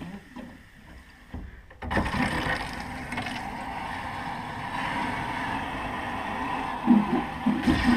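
Water rushing into the plumbing supply lines, starting suddenly about two seconds in and running steadily: the system is being filled and pressurized for a leak test.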